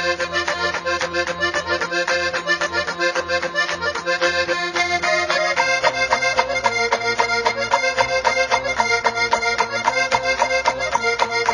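Background music with a fast, even beat; the low accompaniment changes about five and a half seconds in.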